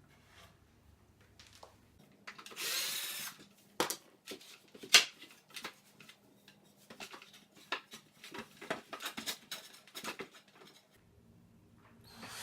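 A power drill runs for about a second, followed by a series of sharp knocks and clicks as wooden pieces are handled and fitted into place.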